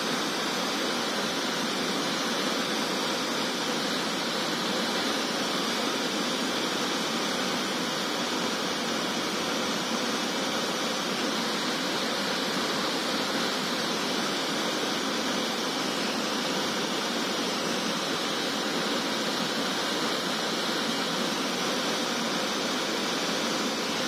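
Small waterfall pouring over rock into a pool: a steady rush of falling water, even and unbroken.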